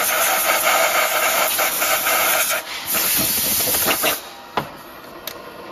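Compressed air hissing loudly from a nozzle blowing swarf and mist away from an end mill cutting in an engine block, with a short break a little before 3 s. The hiss cuts off after about 4 s, leaving a couple of sharp clicks.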